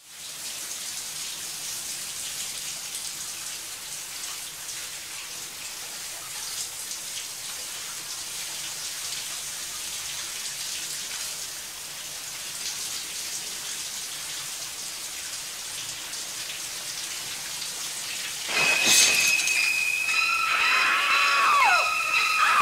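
Shower spray hissing steadily. About three quarters of the way through, shrill, screeching high violin stabs cut in suddenly and much louder, the slashing string cue of the shower-murder scene.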